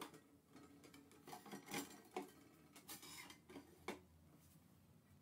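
Sliding glass doors of an analytical balance's draft shield being worked by hand: faint scraping and a handful of sharp clicks and knocks over the first four seconds, the doors running rough in their tracks.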